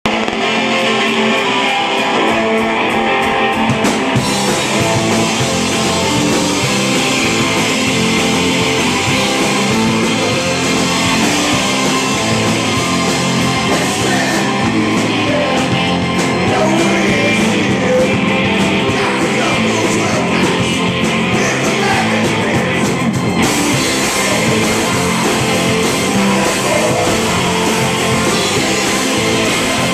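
Rock band playing live and loud: electric guitars over a drum kit, heard from the floor of a small club.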